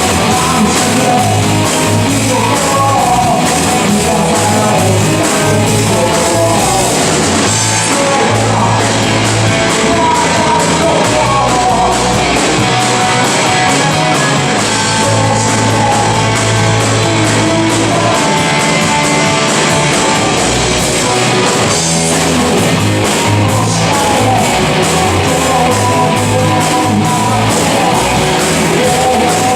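Live rock band playing a rock and roll song, with singing over loud guitars and drums.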